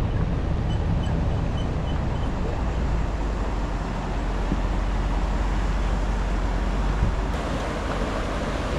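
Pickup truck with a camper rolling slowly along a gravel track, with a steady low engine and tyre rumble. About seven seconds in this gives way to the rushing of a fast snowmelt creek.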